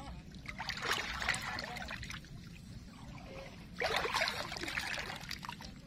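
Water trickling and splashing in a shallow irrigation ditch, in two spells: about a second in, and again near four seconds in.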